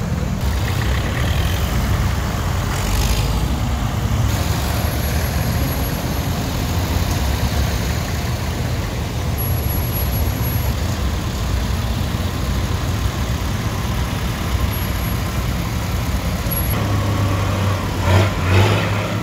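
Several vintage tractor engines running at low speed as a line of tractors drives slowly past one after another, a steady low chugging rumble. Near the end a Case International tractor passing close brings a louder engine note that swells twice.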